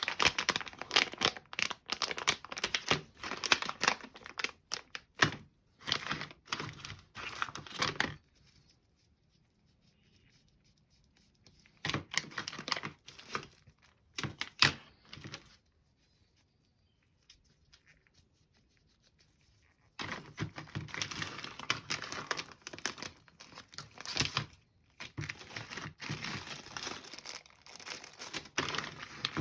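Plastic packaging crinkling and being torn open while parts are unpacked, in three bouts of handling with quiet pauses between.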